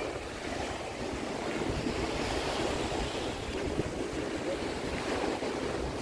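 Steady surf washing on the beach, mixed with wind buffeting the microphone.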